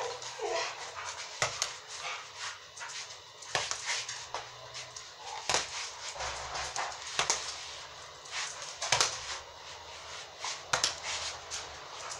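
Boxing gloves striking a small ball hung on a line: a run of short, sharp hits at uneven spacing, the hardest about every one and a half to two seconds.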